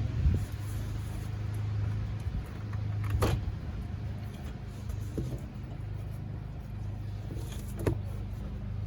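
A few sharp clicks and clinks of hand tools and parts being handled in a truck's engine bay during hose and clamp removal. A steady low hum runs underneath.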